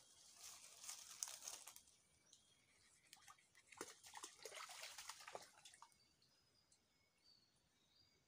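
Faint crackling rustle of dry leaf litter and twigs being disturbed, in two spells, then near quiet with a few faint high short tones near the end.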